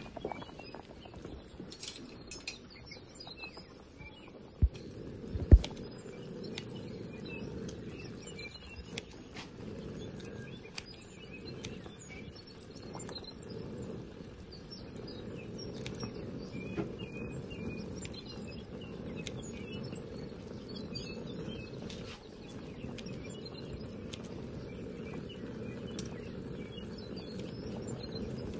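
Pork stomach hotpot broth bubbling steadily at a boil, with birds chirping faintly in the background. Two sharp knocks come about five seconds in.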